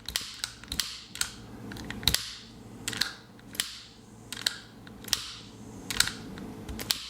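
A handheld lighter clicked over and over, a run of sharp clicks about one or two a second at uneven spacing. It is sending the SOS distress signal in Morse code as short and long pulses.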